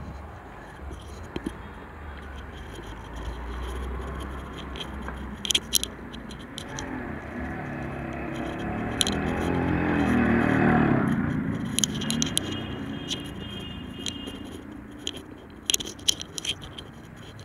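A motor vehicle passing by, its engine sound building to a peak about ten seconds in and then fading away. Scraping and clicking noises recur throughout, thickest near the end.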